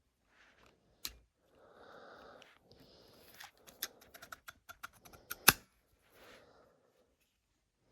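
Handling noise from an M&P Smith & Wesson out-the-front automatic knife: a sharp click about a second in, rustling, a quick run of small clicks, then a loud snap about five and a half seconds in.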